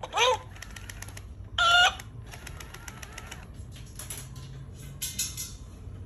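Two short bird-like calls: the first, just after the start, dips and rises in pitch; the second, about a second and a half later, is a steady higher note and the loudest sound. Soft rapid ticking follows each.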